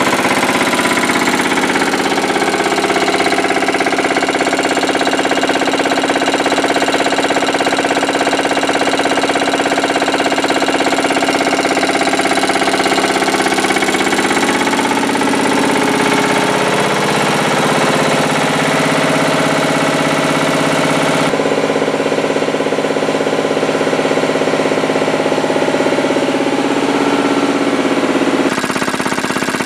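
Matsubara CMH 114A two-stage reciprocating marine air compressor running steadily, driven by its electric motor. The sound changes abruptly about two-thirds of the way through and again near the end.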